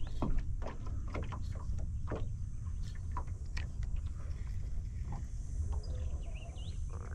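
Water lapping against the hull of a small fishing boat under a steady low rumble, with scattered small knocks and slaps.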